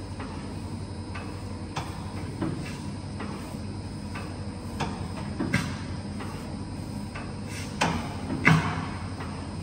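Multimatic MUS G four-row dough divider-rounder running: a steady mechanical hum broken by irregular clacks and knocks of its working parts every second or so as it portions and rounds dough pieces. The loudest knock comes near the end.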